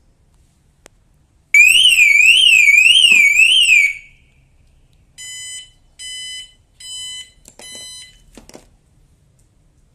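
Car alarm siren on a 20-year-old Honda City going off after its new battery is connected. It gives a loud warbling wail, rising and falling about twice a second, for roughly two and a half seconds. Then come four short steady beeps.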